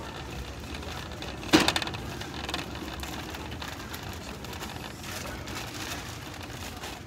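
Loaded wire shopping cart rolling over a store floor, with a brief sharp rattling clatter about one and a half seconds in, over the steady background noise of a large store.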